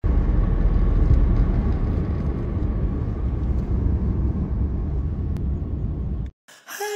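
Steady low rumble of road and engine noise inside a moving car's cabin. It cuts off abruptly near the end, and music with plucked strings starts right after.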